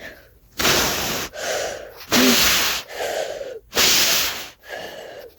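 A person blowing hard in a series of about five strong puffs of breath close to the microphone, making simulated tornado wind against a small keycap model.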